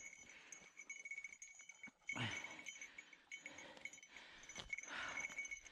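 Two heavy breaths about three seconds apart, over a faint steady high-pitched ringing.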